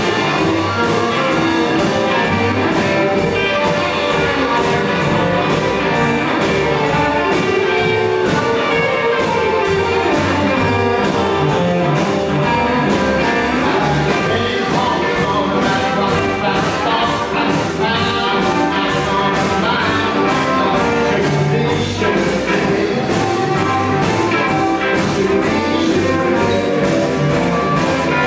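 Live blues band playing an instrumental passage in the 1950s Chicago style: a harmonica blown into a vocal microphone over two electric guitars, an upright bass and a drum kit keeping a steady beat.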